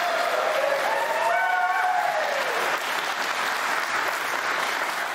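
A church congregation applauding, a steady wash of many hands clapping.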